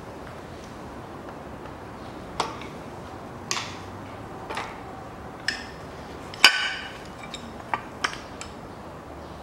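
Sharp metallic clinks and knocks, about nine spread over several seconds, the loudest a little past the middle: the camshaft carrier with its camshaft being worked loose and lifted off the cylinder head of a Daewoo Nexia 1.5 engine.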